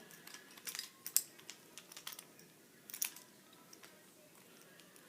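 Light wooden clicks and taps from a homemade butterfly knife made of three pencils on a bolt being handled, several in the first three seconds, then quiet room tone.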